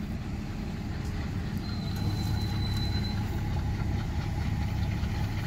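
Diesel engine of heavy machinery running steadily with a low, pulsing rumble, and a faint high tone for about a second and a half in the middle.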